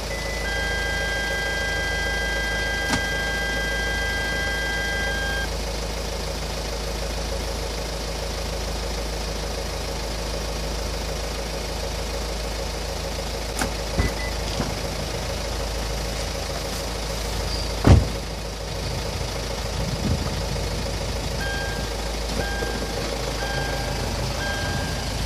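Hyundai Tucson ix engine idling steadily. A continuous electronic beep sounds for about five seconds at the start, a thump comes about 18 seconds in, and an intermittent beep repeats near the end.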